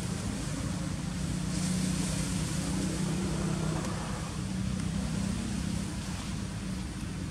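A steady low engine hum under a haze of noise, a little louder from about two seconds in and easing off near the end.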